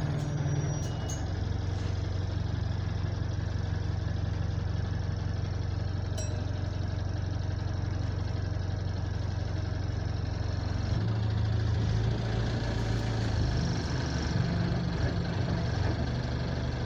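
Diesel engine of an Alexander Dennis Enviro200 single-deck bus, heard from inside the passenger saloon: a steady low drone that shifts in pitch and grows a little louder about eleven seconds in.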